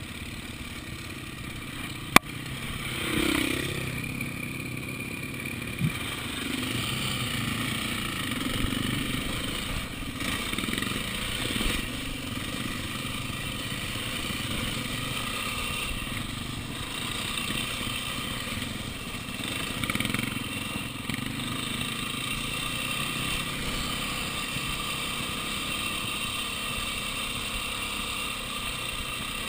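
Enduro motorcycle engine running at low speed while the bike rides over a rocky trail, with the pitch rising and falling a little. A single sharp knock about two seconds in.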